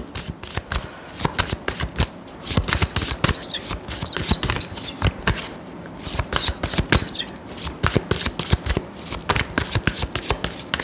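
A tarot deck being shuffled by hand: a rapid, irregular run of soft card clicks and slaps as the cards are mixed before clarifier cards are drawn.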